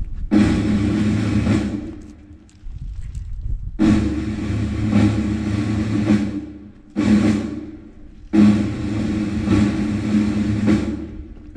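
Horn sounding at one steady pitch in about four long blasts, each one to three seconds, with short gaps between them.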